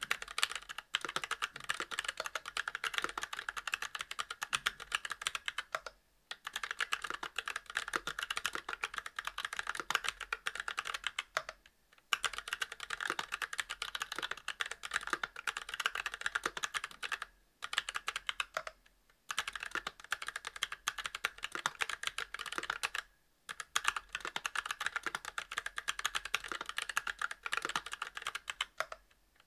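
Continuous fast typing on a Monstargear Alu XO v2 mechanical keyboard with stock Kailh Box Brown tactile switches on a brass plate and GMK keycaps: dense strings of keystrokes broken by short pauses every few seconds.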